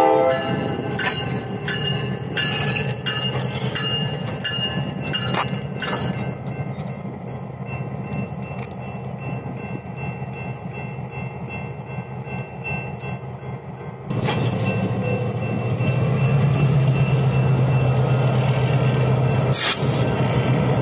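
San Joaquin Valley Railroad diesel locomotives rolling slowly through a grade crossing, the engines running with scattered wheel clicks over the rails. The crossing's electronic bell cuts off right at the start. The engine sound jumps louder about 14 seconds in, and there is one sharp crack near the end.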